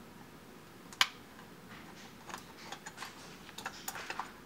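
Small irregular clicks and light scrapes of a small screwdriver working on a clock's plastic movement housing during disassembly, with one sharp click about a second in.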